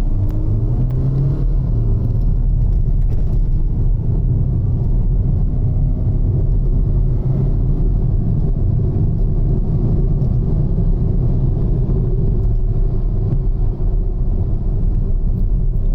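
Hyundai Verna diesel automatic's turbo-diesel engine under hard acceleration from a standing start, heard inside the cabin as a steady low rumble. The gearbox is in manual sport mode, holding each gear to about 4300 rpm as the car pulls up through the gears into fourth.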